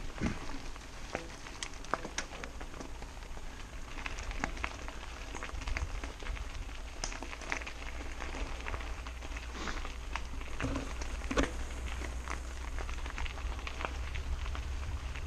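Mountain bike tyres crunching and rolling over a loose gravel track, with many small sharp clicks from stones and the bike rattling. A low wind rumble on the microphone grows from about six seconds in.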